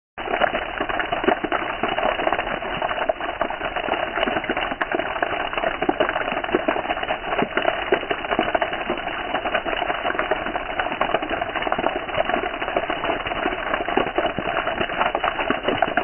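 Rain falling steadily, a dense, even patter of many drops.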